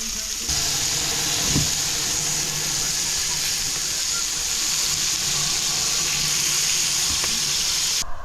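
Sausages, hamburgers and chops sizzling as they fry on a hot cooking surface: a steady hiss that gets louder about half a second in and stops abruptly near the end.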